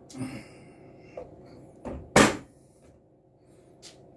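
A few knocks and taps of a kitchen knife against a foil-covered worktop as garlic cloves are pressed flat, with light rustling of aluminium foil; the loudest, sharpest knock comes about two seconds in.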